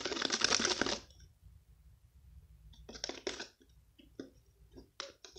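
Sticky, clumping mixture of hand soap and toothpaste squelching and crackling as it is worked in a small cup, in a dense run for about the first second, then a few short separate squelches and clicks.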